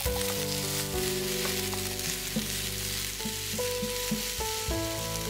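Chopped apples sizzling in melted butter in a frying pan, stirred with a wooden spoon that knocks against the pan a few times.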